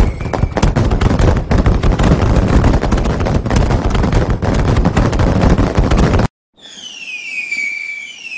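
Dense string of firecrackers and fireworks going off, rapid pops crowding one another. About six seconds in it cuts out for a moment, then a whistling tone falls in pitch and levels off, twice.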